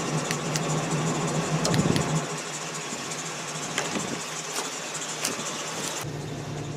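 Pickup truck engine idling steadily, with scattered clicks and handling noise over it.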